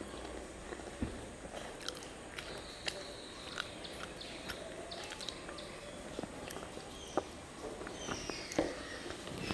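Close-miked eating by hand: chewing and wet mouth sounds as fingers mix rice with curry, heard as scattered soft clicks.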